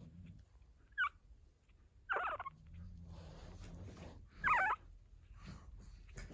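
A 14-day-old pug puppy whimpering: three short, high, wavering squeaks, the last two the loudest.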